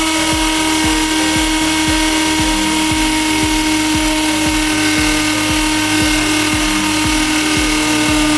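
Electric drill running steadily at speed, a constant motor whine, over background music with a steady low beat of about three to four beats a second.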